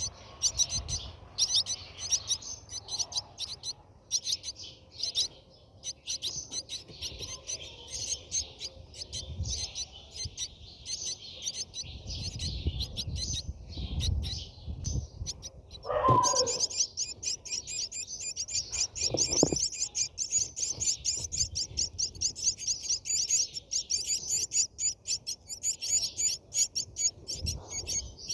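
Brahminy starlings chirping: a dense, rapid stream of high chirps, with a louder, lower call that slides down in pitch about sixteen seconds in.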